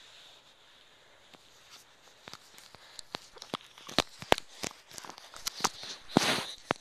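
Handling noise from a Flip Video camcorder held and fumbled by hand right at its microphone: irregular clicks, taps and knocks that grow busier and louder through the second half, with a scraping rustle near the end.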